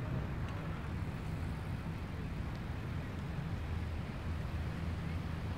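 Steady low rumble of wind on the microphones and rolling noise while riding a bicycle, with no distinct events.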